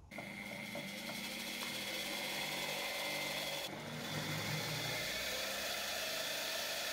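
Washing-machine brushed (commutator) motor running at low speed on a cheap dimmer-type voltage regulator. It makes a steady whirr with a thin whine and grows slightly louder over the first seconds as it keeps picking up speed: the regulator holds low revs badly.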